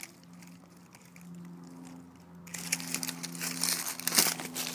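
Dry fallen leaves and gravel crunching and rustling underfoot, starting about halfway through and loud, over a faint steady low hum.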